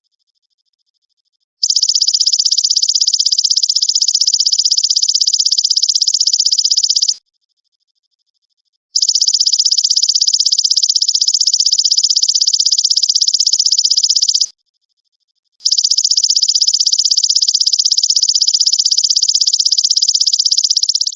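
Belalang emas (golden grasshopper) singing a high, rapidly pulsed buzzing trill. It comes in three bursts of about five and a half seconds each, with short pauses of about a second and a half between them, played as a tutor song for songbirds.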